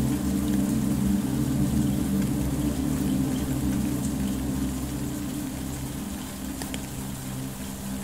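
Steady rain falling on a puddle and forest path, with a few separate drops, under a soft, low, sustained music drone.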